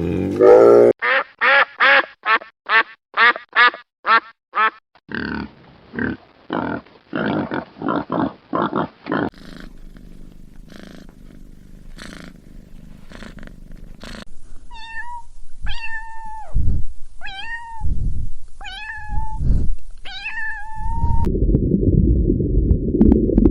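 A string of animal calls: first a fast run of short, pitched calls about three a second, then a quieter stretch, then six longer, higher calls, each ending with a small downward turn. A patch of dense low rumbling noise comes near the end.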